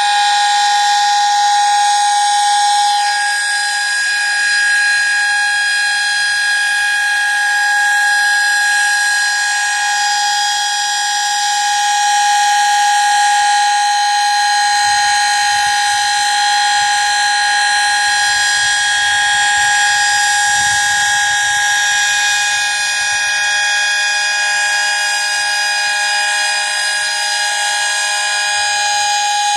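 Sterling Model M dual-rotor electromechanical fire siren sounding its monthly test, wound up to full speed and holding a steady chord of several tones with no rise or fall in pitch.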